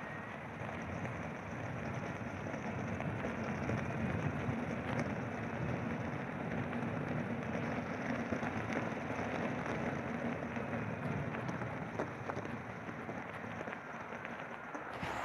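Electric unicycle rolling along a snowy path: a steady rushing, crackling noise of the tyre on packed snow and air moving past, with a faint hum for several seconds in the middle.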